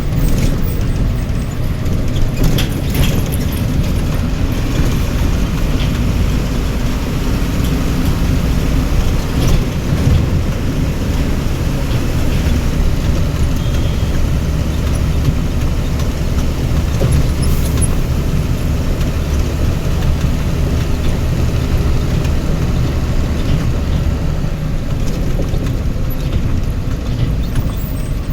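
A motor vehicle's engine running steadily with a heavy low rumble and road noise, with a few faint clicks.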